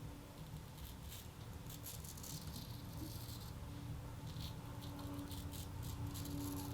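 Straight razor scraping across stubble on the face in a series of short, irregular scratchy strokes.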